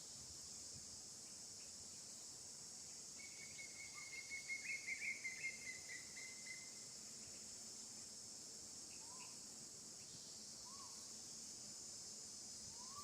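Steady high-pitched buzz of an insect chorus. About three seconds in a pulsing trilling call runs for roughly three and a half seconds, and a few faint short rising chirps follow later.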